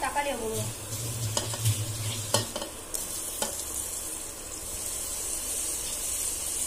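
Onion, mint and ginger-garlic paste sizzling in oil in a metal pot while a wooden spatula stirs, scraping and knocking against the pot a few times in the first half. Chopped tomatoes are tipped into the hot oil, and the sizzling grows louder near the end.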